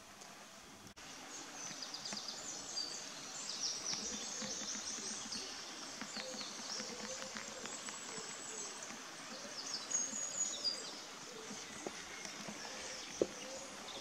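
Woodland birdsong: small songbirds singing quick, high chirping phrases over outdoor background, starting about a second in.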